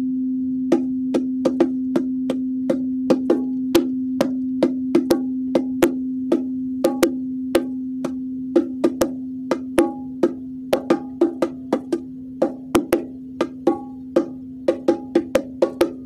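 A singing bowl rings on one steady low tone, slowly fading. Over it come light, quick, irregular taps on bongo drums, growing busier towards the end; the taps fall on two pitches, one for each drum.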